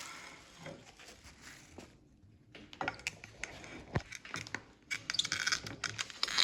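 Plastic takeout tub being handled and its snap-on lid pried open, with a run of sharp plastic clicks and crackles that grows denser over the last few seconds.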